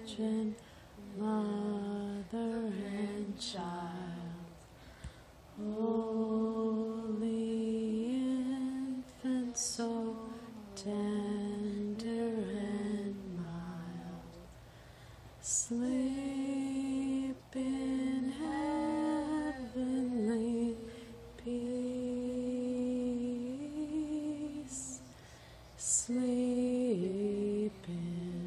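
Three boys singing a slow Christmas carol together, holding long notes with short breaks between phrases.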